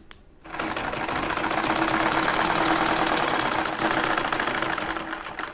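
Usha sewing machine running at a steady speed while stitching a seam, a fast even clatter of the needle mechanism. It starts about half a second in and stops just before the end.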